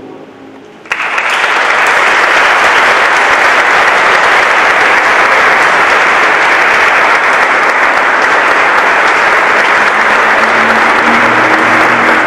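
The last sung chord of a male choir fades out, then audience applause starts suddenly about a second in and carries on, loud and steady.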